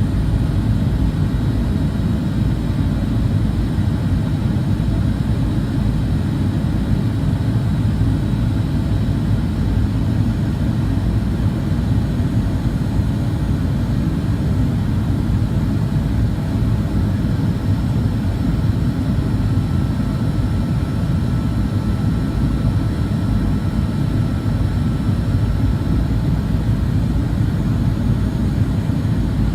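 Steady, unchanging low rumble of jet engines and airflow heard inside an airliner cabin.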